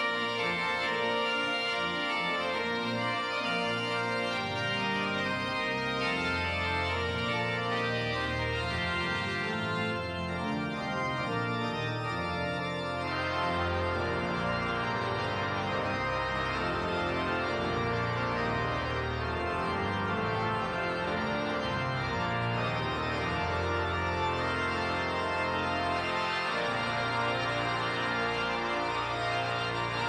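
Large church pipe organ playing full, sustained chords over deep pedal notes; the brighter upper tones drop away about thirteen seconds in.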